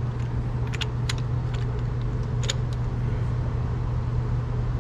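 A few light metallic clicks of a small bolt and tools being handled as an M6 bolt is fitted through the crankshaft pulley to lock its timing position, over a steady low hum.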